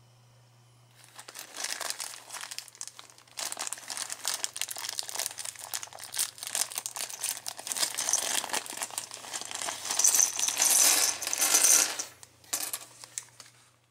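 A thin plastic parts bag crinkling and rustling as it is worked open by hand, starting about a second in, then small plastic LEGO bricks clattering out of it onto a wooden tabletop, loudest near the end.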